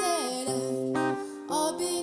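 A woman singing to her own strummed acoustic guitar; her voice slides down at the start, holds a note, and rises again past the middle.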